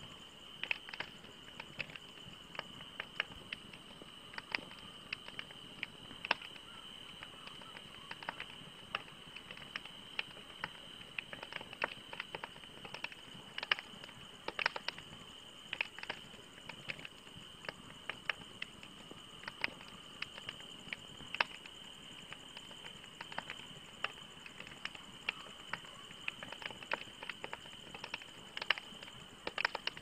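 Wood fire crackling: burning logs give irregular sharp pops and snaps, several a second, over a soft steady hiss.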